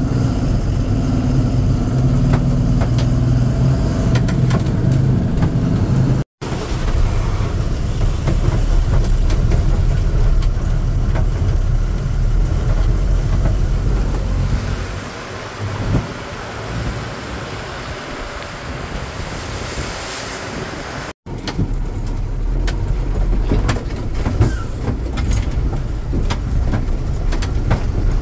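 Lorry engine running with road noise, heard from inside the cab while driving slowly over a rough, muddy road. The sound cuts out for an instant twice and is quieter for a few seconds past the middle.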